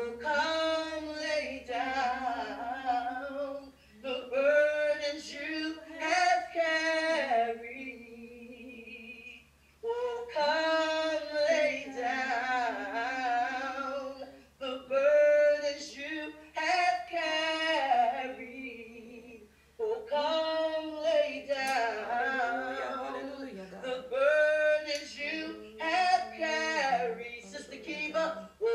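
Slow, unaccompanied hymn singing, mainly a woman's voice, in long held phrases with short breaks between them. A faint steady low hum runs underneath.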